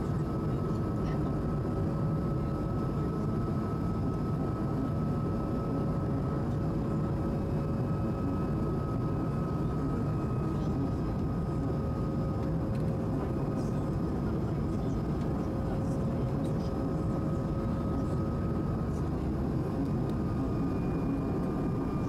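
Steady cabin noise inside an Airbus A220: an even, low rush with two faint steady tones above it.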